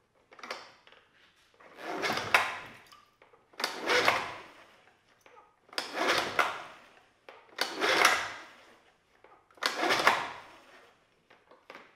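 Yamaha 9.9 hp four-stroke outboard being pull-started by its recoil starter cord: five hard pulls about two seconds apart, each a rasping whirr of the engine turning over, without it firing. There is no choke and the vacuum lines of its starting system are clogged, which the owner expects to keep it from starting.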